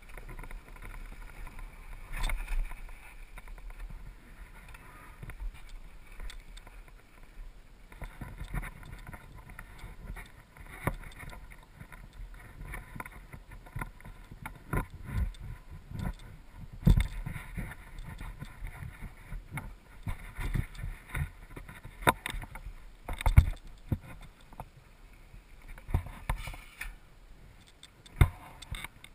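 Downhill mountain bike rolling down a wooden ramp onto a dirt trail, heard from a helmet camera: a running rumble of the tyres, with the bike rattling and sharp knocks over bumps, several of them louder in the second half.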